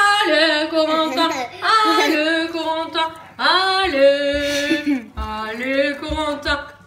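Voices singing a tune together, held notes rising and falling like a chant.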